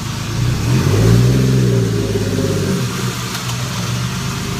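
Toyota 1JZ inline-six idling, then revved once: the pitch climbs about half a second in, peaks, and drops back to a steady idle just past the middle.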